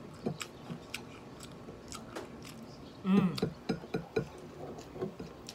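Close-up mouth sounds of a person eating fried pork ribs and rice: chewing with a run of small wet clicks and smacks. About three seconds in comes a short voiced hum, the loudest sound.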